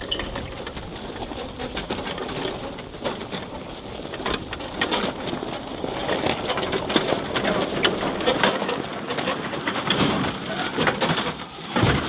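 Gravel crunching and rattling under the tyres of a ride-on mower and a man's boots as he pushes the mower by hand, its engine not running because it won't start.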